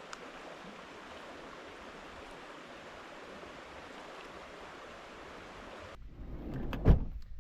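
Steady rushing of a river for about six seconds, then it cuts off abruptly and a few thumps follow, one loud thump near the end.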